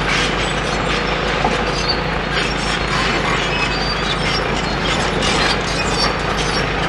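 Demolition excavator with crusher jaws crunching concrete and metal rebar: a dense, continuous run of clanks and cracks over the steady hum of its diesel engine.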